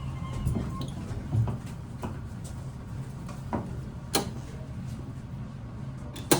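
Otis elevator car: a steady low hum with a few sharp clicks and knocks from the car and door mechanism, the loudest one near the end.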